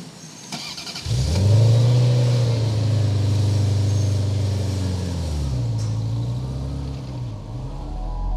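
Ferrari 348 Challenge's 3.4-litre V8 starting up about a second in with a brief rise and fall in revs, then running steadily, the revs dipping and coming back up near the end.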